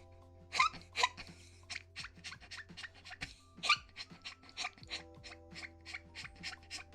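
A person making a rapid run of short squeaky mouth noises, about four a second, a few of them rising squeaks, over soft background music with held notes.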